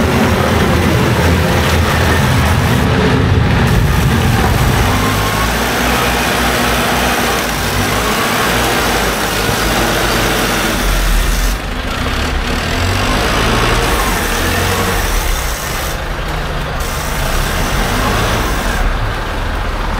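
A motor vehicle's engine running steadily under a constant hiss of noise, its low hum changing pitch every few seconds.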